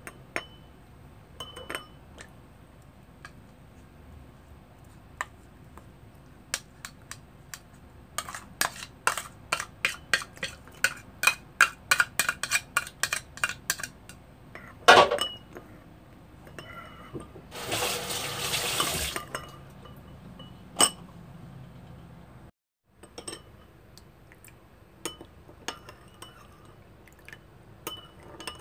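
A metal spoon clinking against a ceramic bowl as fermented black beans are mashed and stirred in it, with a quick run of clinks for several seconds. About two-thirds of the way through, liquid is poured into the bowl for about two seconds, followed by more scattered clinks of the spoon.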